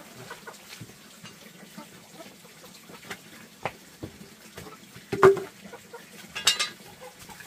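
Light knocks and rustles of a machete and woven plastic sack being handled on a dirt floor, with one loud knock about five seconds in and a short, sharp high sound about a second later.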